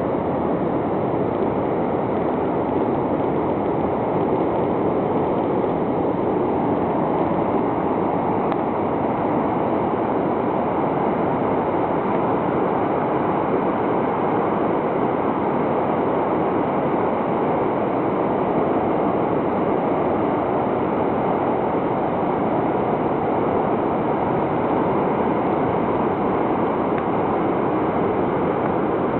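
Ocean surf breaking on a sandy beach: a steady, even roar of waves with no single break standing out.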